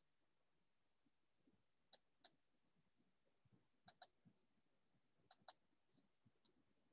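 Computer mouse clicking: three quick pairs of faint clicks, a second or two apart, in near silence.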